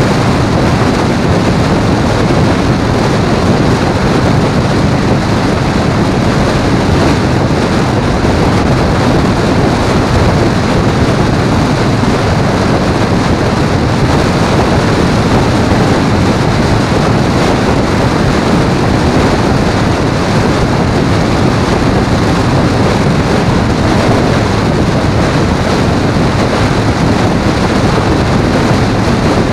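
Steady wind rush buffeting the microphone of a camera on a motorcycle riding at highway speed, mixed with the bike's engine and road noise. Loud and unchanging, with no separate events.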